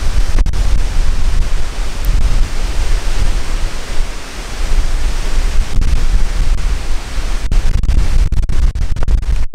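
Strong, gusty storm wind buffeting the microphone: a heavy low rumble that swells and fades, over a steady hiss.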